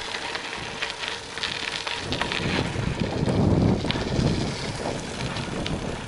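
Wind buffeting the microphone over the rumble of gravel-bike tyres rolling along a rough dirt lane, with a few scattered clicks and rattles.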